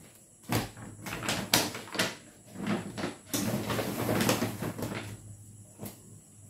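Rustling and crackling of a shopping bag and clothes being handled: several short crackles in the first two seconds, then a longer rustle midway as trousers are pulled out of the bag.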